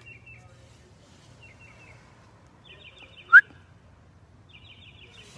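Short bird chirps, repeated about every one to two seconds, with one sudden, very brief high squeak just past the middle that is the loudest sound.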